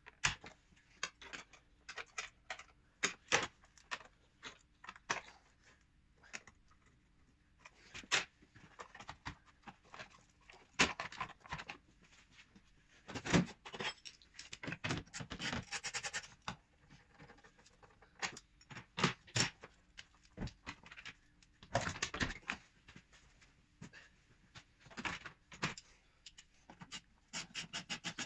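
Hand work in a car engine bay: scattered clicks, clunks and knocks of plastic housings and tools as the airbox is unclipped and lifted out and the battery area is cleared. There are bursts of scraping and rattling about halfway through and again a little later.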